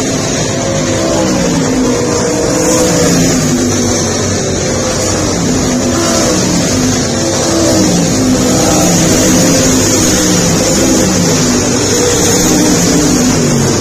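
Several race car engines running together on an oval track, their pitch rising and falling over and over as they accelerate down the straights and lift for the turns.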